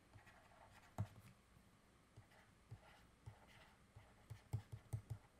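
Faint taps and scratches of a stylus writing on a tablet screen over near-silent room tone, with a sharper tap about a second in and a quick run of small taps near the end.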